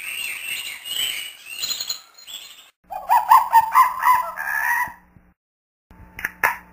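Squawking, fowl-like calls in quick runs, loudest about three to five seconds in. A few sharp clicks follow near the end.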